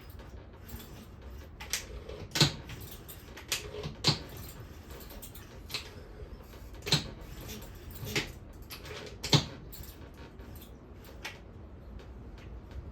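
Scattered sharp clicks and knocks of metal engine parts and tools being handled during a cylinder kit fitting, about eight in all, the loudest about two and a half seconds in and near nine seconds.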